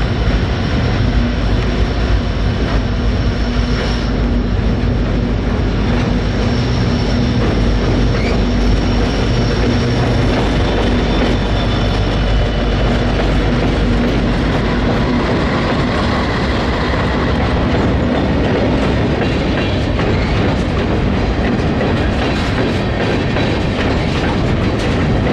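A train passing over a riveted steel railway bridge: a loud, steady noise of rolling wheels with faint high whining tones held over it.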